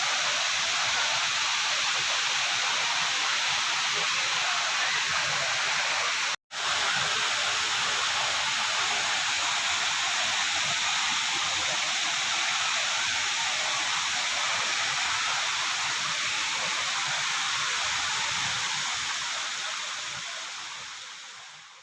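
Waterfall's falling water: a steady, even rush. It breaks off for an instant about six seconds in, then fades out near the end.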